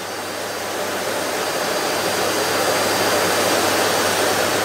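Miele bagged cylinder vacuum cleaner switched on, its motor running up and the rush of air growing louder over the first two seconds, then running steadily.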